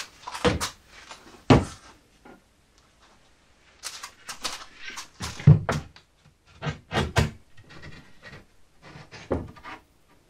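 A length of timber being handled and offered up under a wooden shelf: a scatter of sharp wooden knocks and clatter with rustling between, the loudest knock about halfway through.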